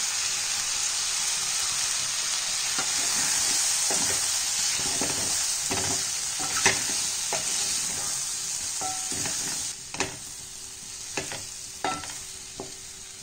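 Raw mango pieces frying with spices in hot oil in a metal kadai: a steady sizzle, with a spatula scraping and knocking against the pan as the pieces are stirred. The sizzle drops much quieter about ten seconds in while the scrapes and knocks go on.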